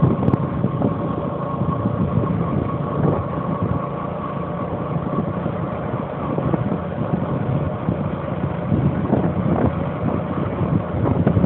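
An engine running steadily at idle, a rough low rumble with a faint steady whine above it.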